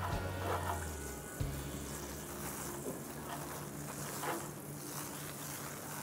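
Water from a garden hose spraying onto a plastic refrigerator shelf and splashing off it: a steady hiss of running water.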